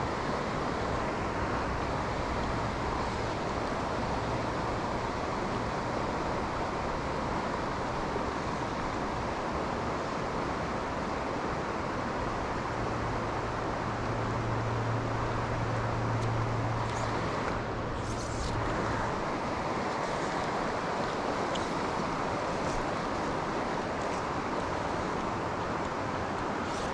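River current rushing steadily past, a constant even wash of flowing water.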